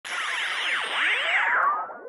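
Synthesized logo-intro sweep: a swooshing electronic sound with many tones gliding up and down at once, fading out near the end.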